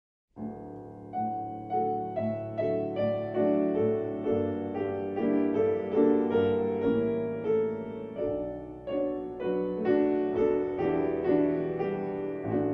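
Solo piano playing a slow, gentle introduction: single notes and chords struck at an even pace, each ringing and fading. It begins about a third of a second in.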